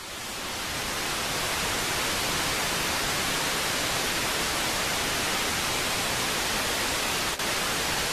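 Steady television static hiss, like an untuned analogue TV, swelling up over the first second and then holding steady, with a brief dropout near the end.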